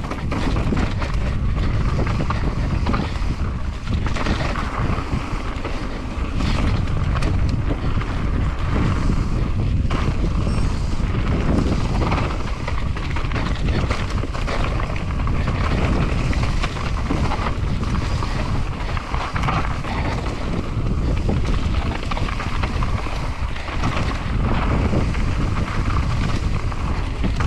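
Wind buffeting an action camera's microphone on a fast mountain-bike descent, over the steady rolling noise of the tyres on a rough trail, with frequent short knocks and rattles from the bike going over bumps.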